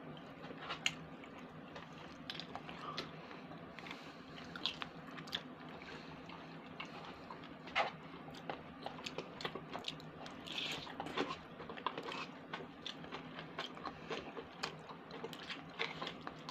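A person chewing pasta close to the microphone: soft wet mouth sounds with many small clicks and smacks.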